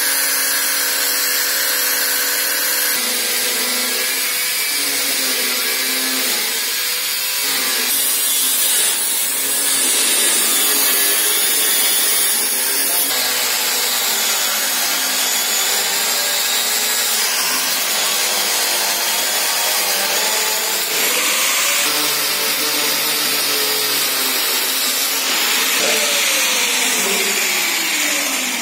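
Handheld angle grinder cutting into a sheet-steel control panel, its abrasive disc screaming against the metal as it opens a cut-out for a relay. The whine shifts in pitch as the disc is pressed in and eased off, and falls away near the end.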